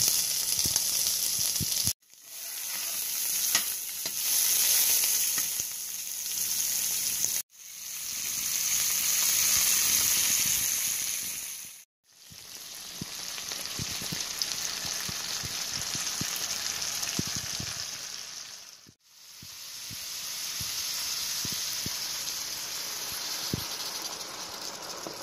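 Food sizzling in a hot cast iron skillet as onion chunks and small new potatoes fry, with green beans tipped in over them. It comes as several steady stretches, each fading in and out, with short silent breaks between.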